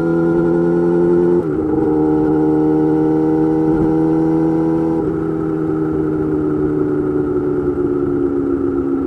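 Yamaha YZF-R6 inline-four engine through an M4 GP slip-on exhaust, running at steady revs while riding. The note dips briefly about a second and a half in, changes again about five seconds in, and then the revs slowly fall.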